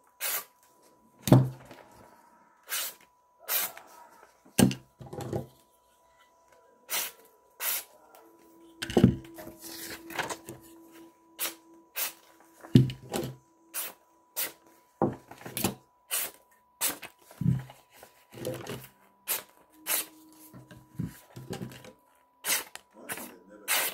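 Folding pocket knives being handled on a table: repeated sharp clicks and knocks, some with a dull thud, under a faint steady tone.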